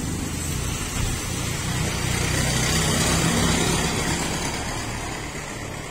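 A road vehicle's engine and tyres passing by: a low steady rumble with noise that swells to a peak about three seconds in, then fades.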